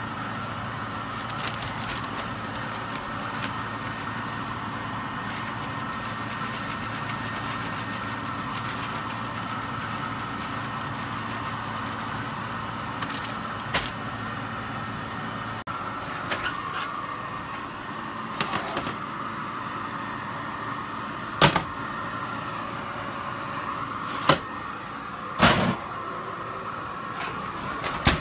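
A steady appliance-like hum in a kitchen, with a few sharp knocks and clatters in the second half, the loudest about three-quarters of the way through, as the baking pan and the oven are handled.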